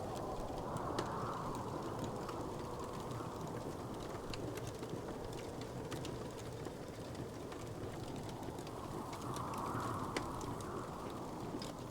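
Wood fire crackling in a fireplace: a few sharp pops stand out, the clearest about a second in and near the end, over a steady low rumble.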